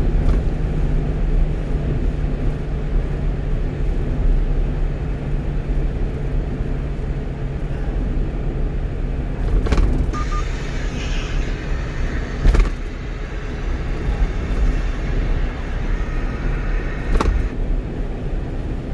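One-ton truck running at expressway speed, heard from inside the cab: a steady engine drone and road rumble, with three sharp knocks, the loudest about two-thirds of the way through.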